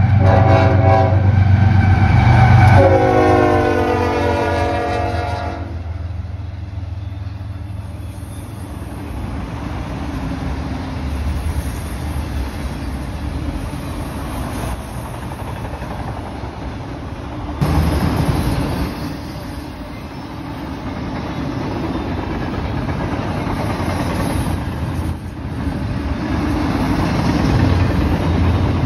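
CSX freight locomotive sounding its horn, a several-note chord, as it passes at speed over a deep diesel rumble; the horn's pitch drops about three seconds in as it goes by, and the horn stops around six seconds. Then the train's autorack and double-stack container cars roll past, their wheels clattering on the rails.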